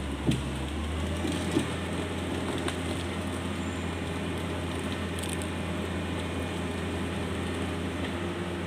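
Hitachi Zaxis 200-5G excavator's diesel engine running steadily with a low, even hum, with a couple of short knocks in the first two seconds.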